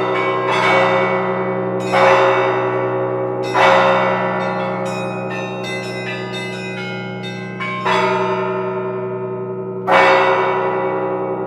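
Church bells ringing: about five strikes, one every second and a half to two seconds with a longer pause in the middle, each hum lingering into the next.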